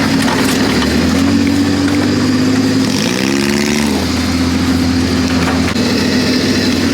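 ATV engine running steadily, with a brief rev about three seconds in.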